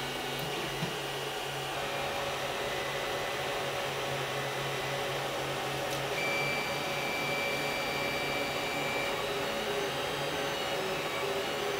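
Creality CR-10 3D printer running as a print starts: its cooling fans make a steady whirr. Its stepper motors drive the printhead along the gantry, with a thin steady whine in the middle of the stretch.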